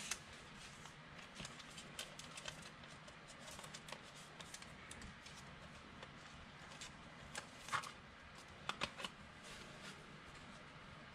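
Faint ticks and light rustles of trading cards being handled, with a few sharper clicks about three quarters of the way through.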